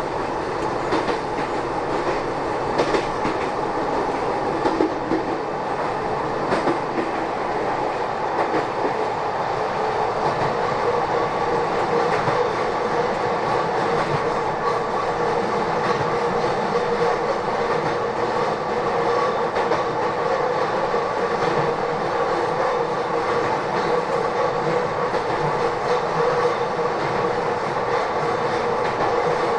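Inside a Kobe Electric Railway commuter train running between stations: the steady rumble of wheels on rail, with clicks over rail joints mostly in the first several seconds. A steady tone grows clearer through the second half.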